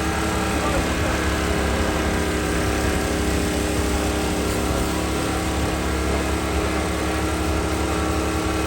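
An engine running steadily at an even speed, with no change in pitch.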